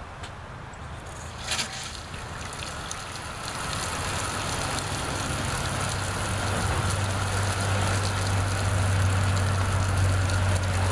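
Toilet fill valve in a bucket reservoir, fed by a garden hose, opening up and spraying water into the bucket as it starts to fill: a click about a second and a half in, then a hiss that grows louder, with a steady low hum building under it from about halfway.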